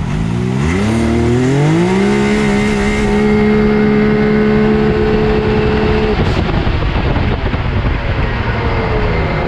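Big-turbo Can-Am Maverick X3's turbocharged three-cylinder engine at full throttle, heard from the cab: revs climb steeply over the first two seconds, then hold steady at high rpm while the CVT carries the car up to speed. The throttle is shut about six seconds in and the revs fall away.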